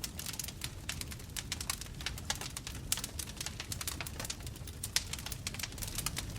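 Bonfire burning: dense, irregular crackling and popping of the burning wood over a low steady rumble of flames, with a couple of louder pops about three and five seconds in.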